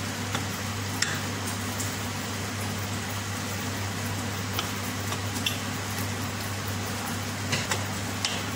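A spatula stirring cooked rice and vegetables in a stainless steel pot, with a handful of light clicks and scrapes against the pot, over a steady hum and hiss.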